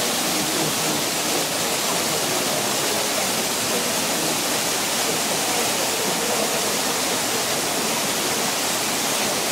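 Tall fountain jets shooting up and falling back into their basins: a steady, even rush of splashing water.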